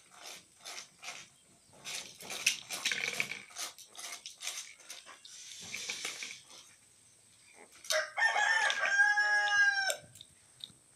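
A rooster crows once, loudly, for about two seconds, starting about eight seconds in. Before it come short, soft snuffling and scuffling sounds as a piglet noses at a puppy lying on the ground.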